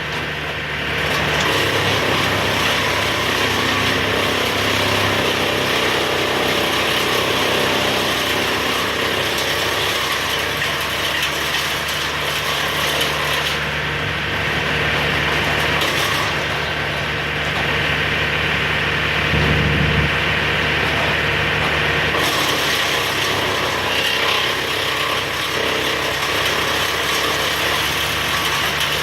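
An engine running steadily at an even speed, with mechanical clattering over it.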